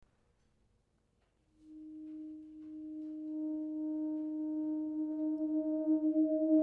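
Saxophone entering from silence about a second and a half in on a single long held note, starting very soft and swelling steadily louder, its tone growing brighter as it builds.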